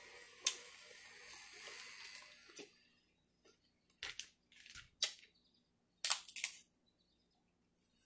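Crab leg shells being cracked and snapped apart by hand: a few short, sharp snaps and crunches, the loudest cluster about six seconds in.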